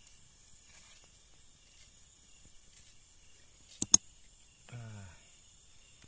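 Steady high-pitched chorus of night insects such as crickets. About four seconds in, two sharp loud clicks come close together, followed by a brief voice.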